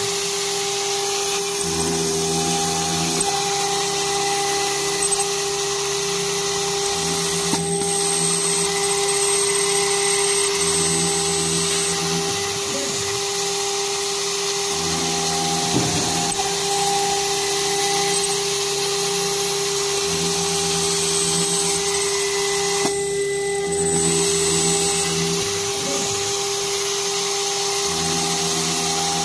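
Water-cooled spindle of a CNC router running with a steady whine while milling aluminum, over an even hiss. A lower hum comes and goes every few seconds.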